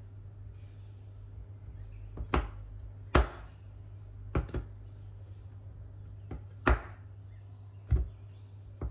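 A chef's knife chopping a bar of dark chocolate on a bamboo cutting board. The blade knocks sharply through the chocolate onto the wood about nine times at an uneven pace, starting about two seconds in, some strokes in quick pairs, over a low steady hum.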